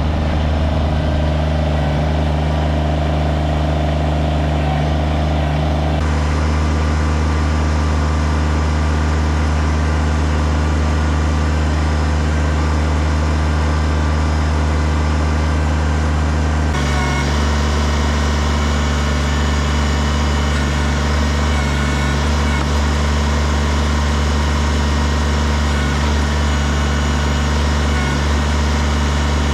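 An engine running steadily at a constant speed with a strong low hum. The sound changes abruptly about six seconds in and again just past halfway.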